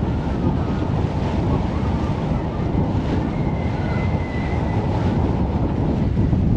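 Wind buffeting the microphone on the open deck of a moving ferry, over the low rumble of the boat and the wash of choppy water, steady throughout.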